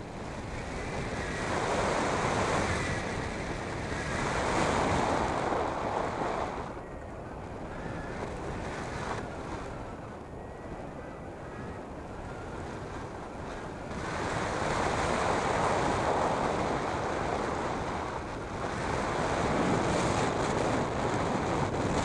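Wind rushing over the microphone of a hang glider in flight, a steady rush that swells louder three or four times and eases between.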